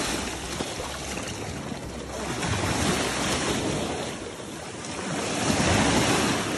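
Ocean surf washing up the beach, swelling and falling back twice, with water splashing at the start and wind buffeting the microphone.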